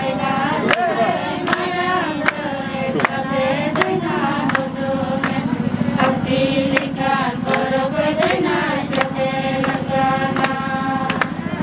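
Voices singing a Sohrai folk song, with a drum struck on a steady beat about every three-quarters of a second.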